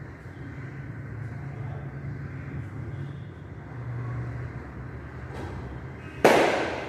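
A single sudden loud bang about six seconds in, dying away over about half a second, over a steady low hum.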